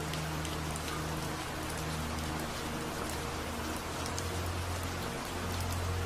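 Recorded rain falling steadily, with scattered drop taps, over a low sustained drone from delta-wave relaxation music.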